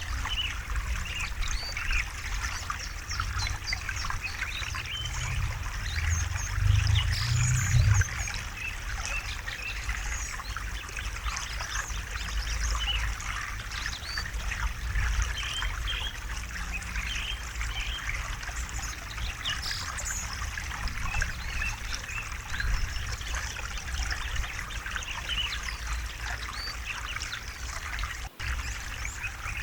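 River water flowing and trickling over stones in a steady, splashing wash, with a low rumble that grows louder about six to eight seconds in. The sound breaks off for an instant near the end.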